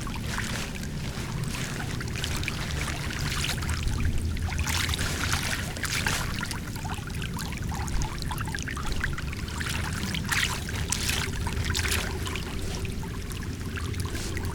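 Floodwater pouring steadily down a drain, with a low rumble and splashy surges that come and go.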